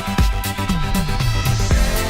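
Electronic dance music with a steady kick drum about two beats a second. The beat drops out briefly under a run of falling bass notes and a rising sweep, then comes back near the end.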